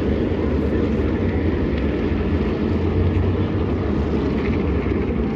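A field of Tour-type modified race cars' V8 engines running together at slow pace-lap speed behind the pace car, a steady deep engine drone with no rise or fall.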